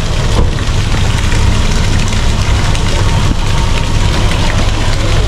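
Small fountain jets splashing steadily into a pond, with a steady low rumble underneath.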